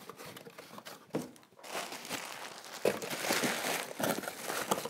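Packaging being handled: a plastic bag and a cardboard box crinkling and rustling in irregular bursts, busiest in the second half.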